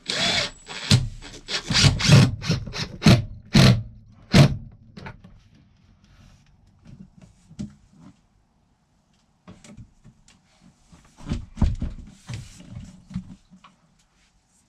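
A run of irregular knocks and clatter, loud and frequent for the first four seconds or so, then fainter and more scattered, with a brief cluster again near the end.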